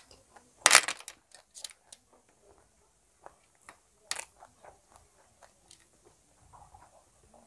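Close-miked eating of snail curry. Snail shells click and clatter as they are handled and set down on a steel plate, loudest about a second in, between quieter chewing and wet mouth sounds.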